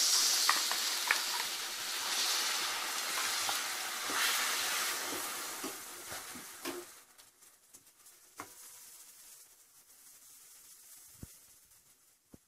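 Ground ginger-peel chutney sizzling in hot tempering oil in a steel kadai as it is stirred with a steel ladle. The sizzle fades away over about seven seconds, leaving only a few light clicks of the ladle against the pan.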